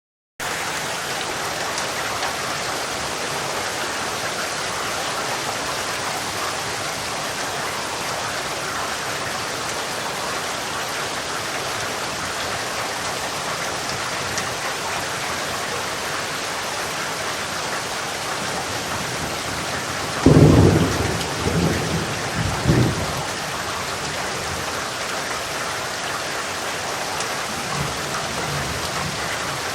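Steady rain falling, with a sudden loud thunderclap about two-thirds of the way through that rolls on in a few swells for about three seconds, and a fainter rumble of thunder near the end.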